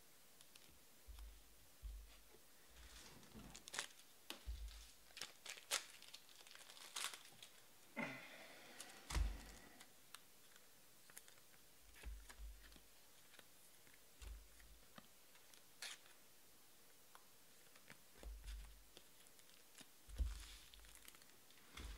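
Faint crinkling and tearing of trading-card pack wrappers, with a longer tear about eight seconds in, scattered clicks of cards being handled, and soft thumps against the table.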